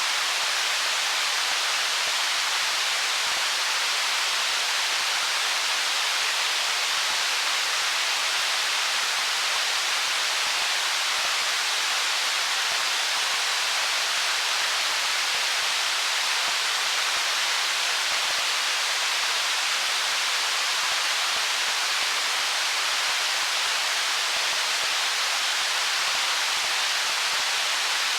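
Stream water rushing over stones in an unbroken, even hiss, with almost no deep rumble or separate splashes.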